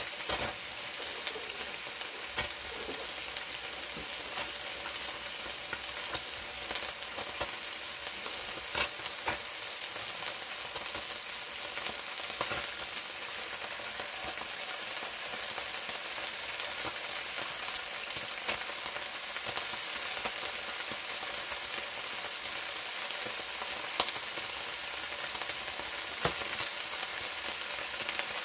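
Grease sizzling and bubbling steadily in a hot frying pan as pieces of raw steak are laid in to sear, with a few sharp clicks.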